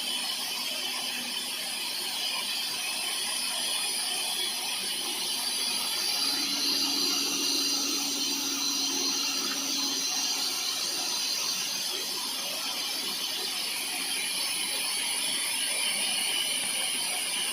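Air-powered down-the-hole water-well drilling rig running on compressed air: a steady hiss of air, with a low hum that stands out for about four seconds midway.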